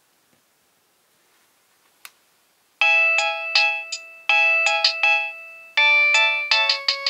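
Nokia 6820a mobile phone playing an electronic ringtone melody through its small speaker, in quick short notes that start about three seconds in, after a near-silent pause and a single faint click.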